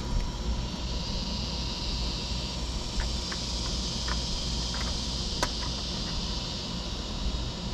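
Steady outdoor background of low rumble and high hiss with a faint steady tone, under a few faint light clicks and taps as black plastic drawer pieces are handled, the sharpest about five and a half seconds in.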